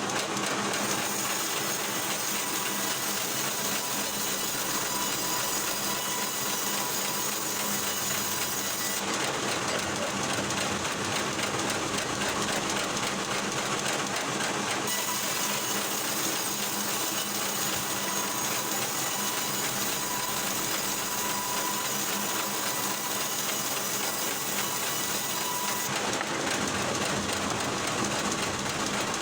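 Band sawmill running and cutting through logs: a steady, loud mechanical noise that changes abruptly three times.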